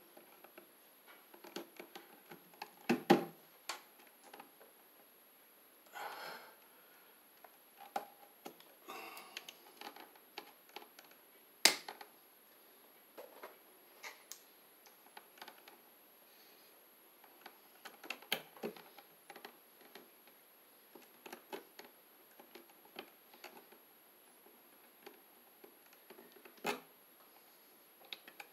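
Hands and pliers working electrical wires at a junction box: scattered faint clicks and rustles, with four sharper snaps spread through it.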